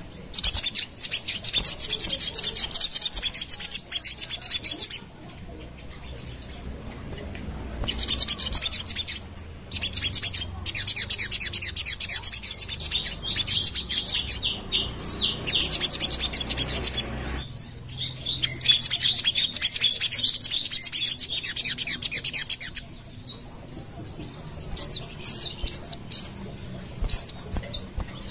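Sogon sunbird singing in long bouts of rapid, high chattering trills: three bouts broken by short pauses, then scattered single chirps near the end.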